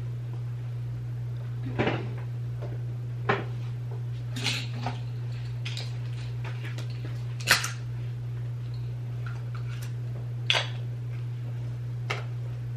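Plastic clothes hangers clicking and clattering against each other as they are handled, in about six short bursts with the loudest near the middle, over a steady low hum.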